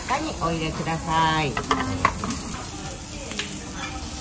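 Lamb and vegetables sizzling on a dome-shaped Genghis Khan (jingisukan) grill, a steady frying hiss, with a sharp clink about two seconds in as a condiment shaker is set on the table.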